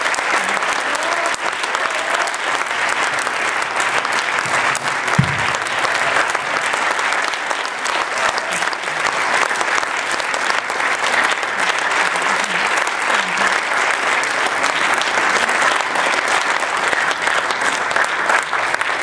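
Audience applauding steadily, a dense crackle of many hands clapping, with a single brief low thump about five seconds in.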